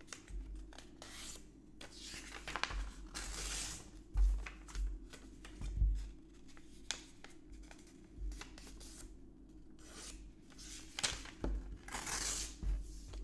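A sheet of paper being handled and folded: rustling swishes and crisp creasing in several bursts with pauses between, the fullest ones early and again near the end, with a few low thumps in between.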